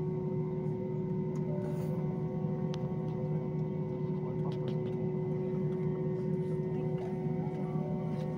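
Steady low mechanical hum with a fixed steady tone over it, unchanging throughout.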